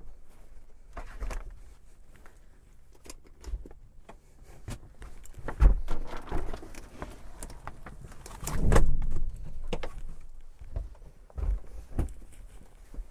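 Someone moving inside a pop-up truck camper shell and pushing up its spring-assisted roof: scattered knocks and clicks with rustling of the fabric walls, and two heavier thumps about five and a half and nine seconds in.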